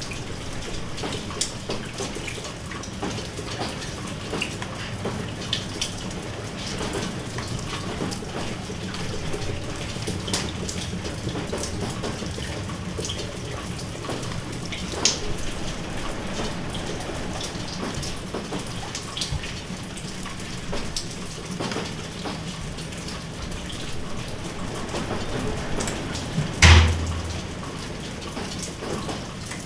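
Rain falling steadily, a continuous hiss with many separate drops ticking close by. Near the end there is a single loud thump, the loudest thing heard.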